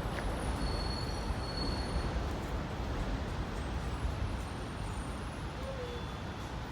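Steady outdoor background rumble, heaviest in the low end, with a faint thin high tone about a second in.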